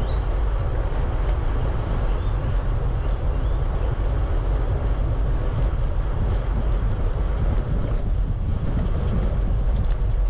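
Wind buffeting the microphone of a camera on a moving bicycle: a steady low rumbling noise, with a few faint short high chirps in the first few seconds.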